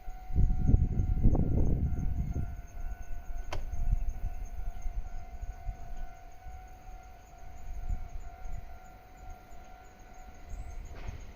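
Japanese railway level-crossing warning bell ringing with a steady tone. A low rumble is heard for the first two seconds or so, and there is a single sharp click a little after.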